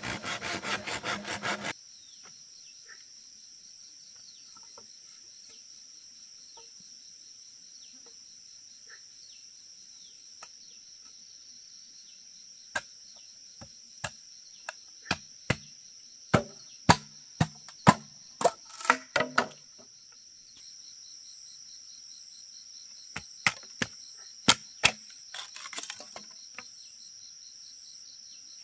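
A machete blade worked rapidly back and forth across a green bamboo pole, then sharp single chops of the machete striking bamboo, about a dozen in the middle and a few more near the end. Insects drone steadily throughout.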